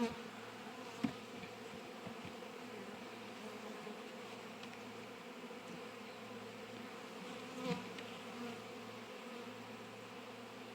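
Honeybee colony buzzing steadily from an opened hive during a frame inspection, a low even hum, with a faint tick about a second in and a small knock near the end.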